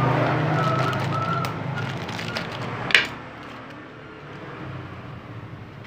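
A passing vehicle's engine, fading away over the first three seconds, then a single sharp click about three seconds in, followed by quieter handling sounds.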